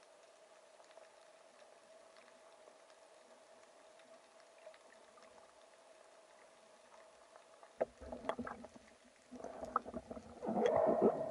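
Sound picked up by an underwater camera: a faint steady hum, then from about eight seconds in a run of clicks, knocks and splashy water noise, loudest near the end, as the camera is moved and bumped against the diver's arm and wrist.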